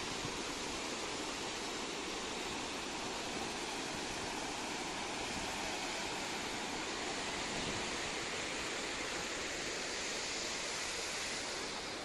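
Dhuandhar Falls on the Narmada river: a wide river plunging over rock ledges, giving a steady, unbroken rush of falling water.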